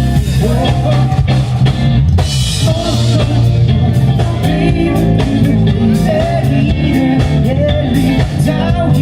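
Rock band playing live: guitar and drum kit.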